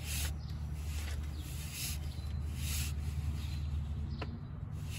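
Fingers turning a loosened drain bolt out of a car's oil pan, making a series of soft rubbing strokes over a steady low hum.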